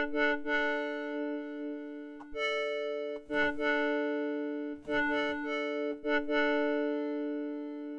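Arturia MiniFreak synthesizer on its Harmo additive oscillator, playing a sustained chord that is re-struck about four times. The tone shifts as the wave (content) and timbre (sculpting) parameters are turned by hand.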